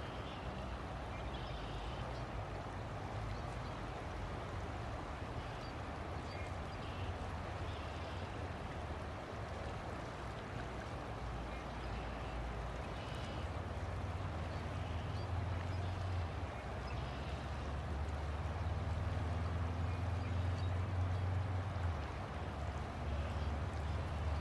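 River water flowing steadily, with a low droning hum underneath that grows louder from about halfway through, and a few faint high chirps.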